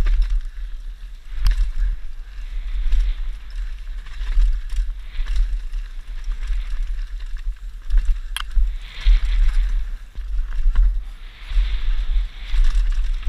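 Santa Cruz V10 downhill mountain bike ridden fast down a dry dirt trail: tyres crunching over dirt and loose stones, wind buffeting the microphone with a heavy low rumble, and a few sharp knocks from the bike over bumps.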